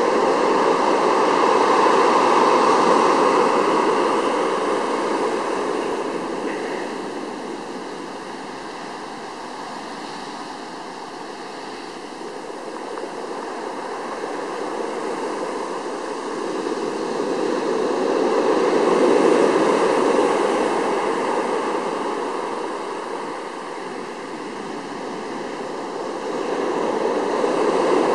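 Ocean surf breaking and washing up a sandy, pebbly beach: a continuous rush that slowly swells and ebbs as sets of waves come in, loudest near the start, about two-thirds of the way through, and again at the end.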